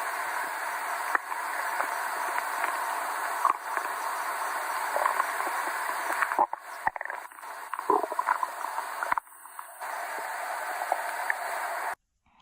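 Hungry stomach growling: a steady gurgling hiss with scattered clicks and a few louder gurgles in the middle. It cuts off suddenly near the end.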